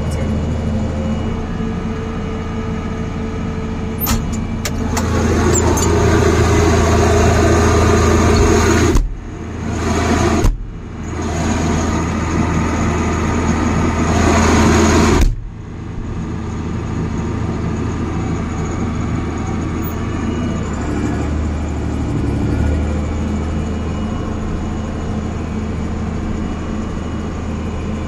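Tractor engine running steadily, heard from inside the cab. Through the middle the sound is louder and rougher, breaks off abruptly twice, then cuts back sharply to the steadier drone.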